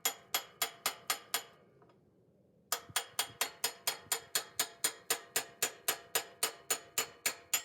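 Rapid, evenly spaced hammer blows on steel, about four a second, each with a short metallic ring. The blows stop for about a second and a half, then start again and keep going.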